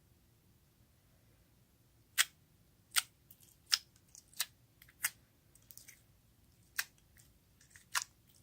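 Slime being handled, giving short sharp pops and clicks about once a second, with fainter crackles between them, after a quiet start.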